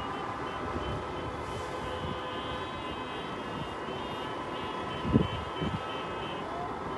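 Many car horns held down together in city traffic, a steady chord of overlapping horn tones over traffic noise: drivers honking in protest. A couple of short low thumps come about five seconds in.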